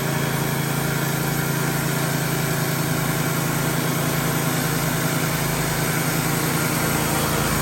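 Wood-Mizer LT15 portable band sawmill's engine running steadily at an even speed.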